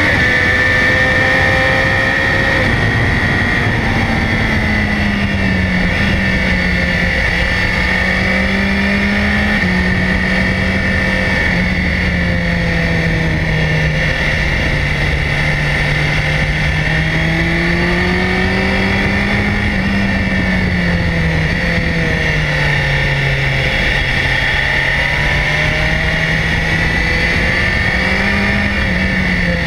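BMW S1000XR's inline-four engine running under way, its pitch rising and falling gently over several seconds at a time as the bike is ridden through a series of bends. A steady high whine runs beneath it.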